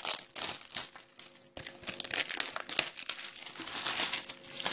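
Plastic shrink-wrap crinkling and tearing as it is peeled off a DVD case by hand, in a run of irregular crackles with a short lull about a second and a half in.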